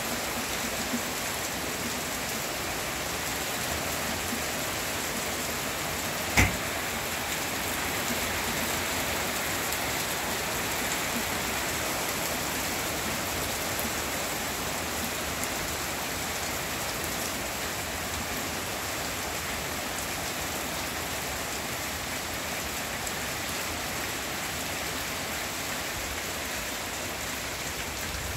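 Heavy rain pouring steadily onto garden leaves and plants, an even hiss that does not let up. One sharp knock stands out about six seconds in.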